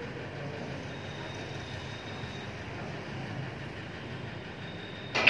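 Snooker balls knocking together: one sharp click about five seconds in and a smaller one just after, over a steady background rumble.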